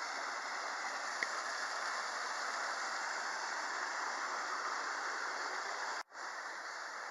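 Steady rush of a mountain stream flowing over rocks, broken by a brief cut-out about six seconds in.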